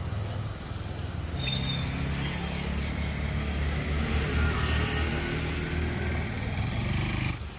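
Motor vehicle engine running nearby, a low rumble that grows louder through the middle and cuts off abruptly near the end.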